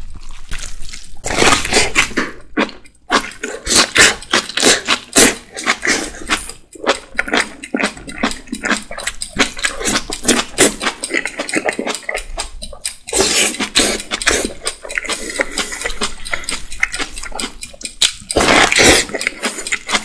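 Fast, loud eating of whole napa cabbage kimchi leaves: wet crunching and chewing with smacking mouth noises, and the squelch of the leaves being torn apart by gloved hands, with brief pauses now and then.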